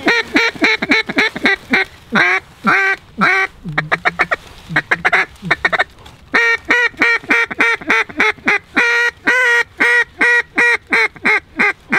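Mallard duck call blown by a hunter in a rapid series of short quacks, about four a second, thinning out for a few seconds midway and then running steadily again. He is calling to a big flock of mallards working the decoys.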